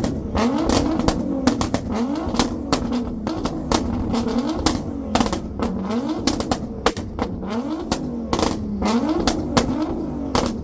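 Performance car engine revved in quick repeated blips, a little more than one a second, each climbing and falling back. Sharp exhaust pops and bangs crackle between the blips.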